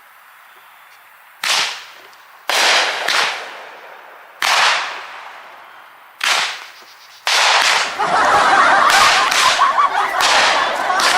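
200-gram consumer firework cake (Fat Boy) firing its shots. About a second and a half in, loud cracks start, each fading away, one every second or two. From about seven seconds in they run together into a rapid, continuous volley of cracks and crackling.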